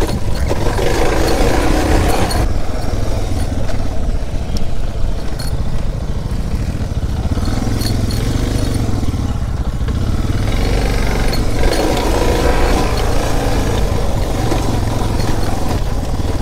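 Off-road motorcycle engine running on the move, its revs rising and falling.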